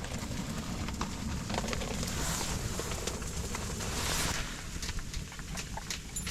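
Liquid-fuel camp stove burning with a steady rushing hiss and low rumble, with scattered small clicks and two brief swells of hiss about two and four seconds in.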